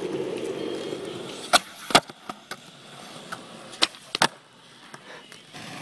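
Skateboard wheels rolling on asphalt, then sharp clacks of the tail popping and the board landing: two about a second and a half in and a quick cluster around four seconds in, as 360 flips are tried.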